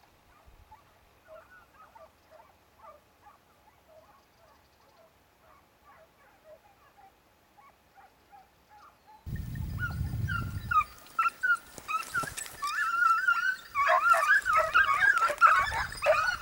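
A pack of hunting hounds baying on a hare's trail. For the first nine seconds the calls are faint and distant; then they turn loud and overlapping as the pack closes in. The hounds are in full cry on a hot scent. About nine seconds in, a brief low rumble hits the microphone.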